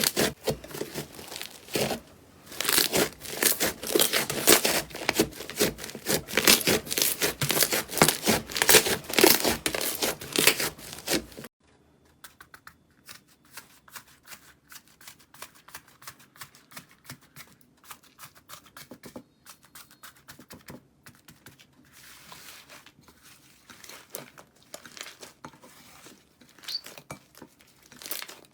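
Slime being squeezed and pressed by hand, making dense, loud crackling and popping. About eleven seconds in it cuts suddenly to a much quieter stretch of sparse, soft clicks.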